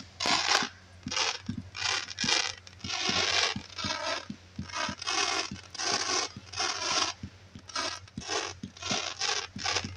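A ground-launched firework cake firing a rapid string of shots, about two a second. Each shot is a short thump followed by a rough, rasping hiss as the comet climbs.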